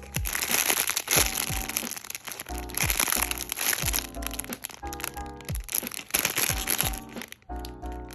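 Plastic packaging crinkling and crackling in long stretches as it is handled and opened, over background music with a steady beat.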